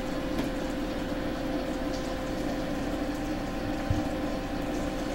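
A steady hum with a few constant tones over a low noise floor, with a couple of faint clicks and one short low thump near the end.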